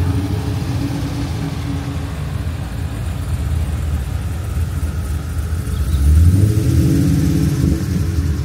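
Engines of show cars driving slowly past, a steady low engine note that grows loudest as one vehicle passes close about six seconds in.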